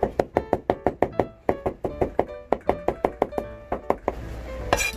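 Kitchen knife chopping rapidly on a cutting board, about six even strokes a second, mincing garlic and ginger, over background music. The chopping stops about four seconds in, and a single louder knock follows near the end.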